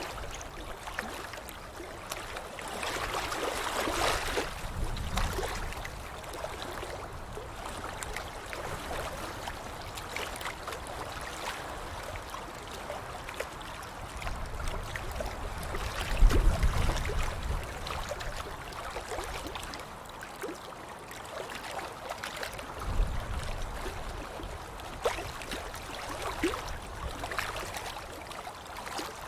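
Water splashing and sloshing continuously, with a heavier, deeper splash about halfway through and another a few seconds later.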